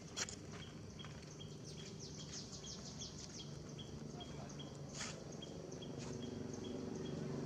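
Small birds chirping in quick high notes, one short note repeating two or three times a second, over a low steady hum that grows louder near the end; a couple of sharp clicks.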